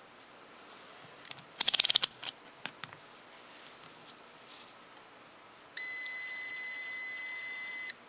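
Craftsman digital multimeter on its continuity setting giving one steady, high-pitched continuity beep about two seconds long, starting near six seconds in, as its probe tips touch: a closed circuit, reading 000. Before it, a quick run of small clicks about two seconds in as the meter is switched on.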